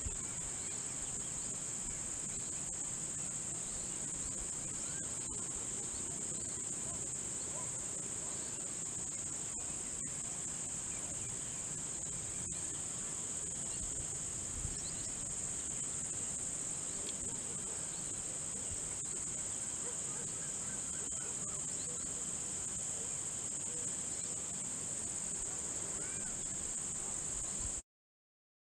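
Insect chorus: a steady, unbroken high-pitched shrill of crickets, which cuts off abruptly near the end.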